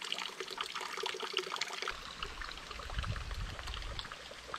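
Flowing water trickling and splashing, as from a mountain stream or small cascade. About two seconds in, a low rumble comes in under it and stays.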